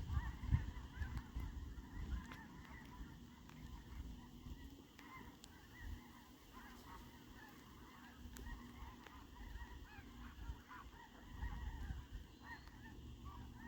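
A large flock of geese honking at a distance: many faint calls overlapping in a continuous chorus, over a low rumble.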